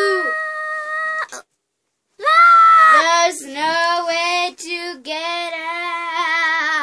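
A young girl's voice singing long held notes, with a short break about a second and a half in, then several more sustained notes that waver near the end.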